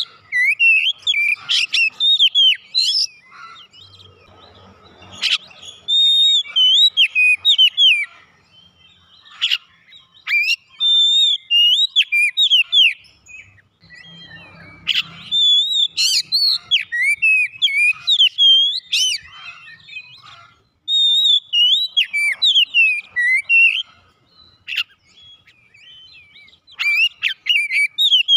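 Oriental magpie-robin (kacer) singing: loud phrases of quick, varied sliding whistles and chips, broken by pauses of one to a few seconds.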